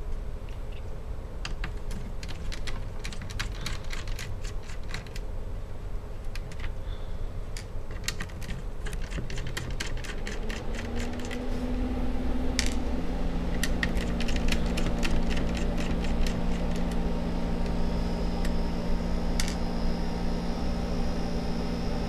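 Small, sharp clicks and taps of a precision screwdriver working the screws out of a laptop motherboard. A steady low hum comes in about halfway through.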